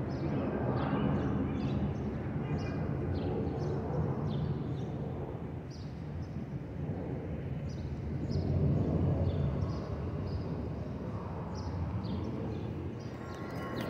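Jet airliner's engines rumbling overhead as it climbs away, swelling about two thirds of the way through. Small birds chirp now and then.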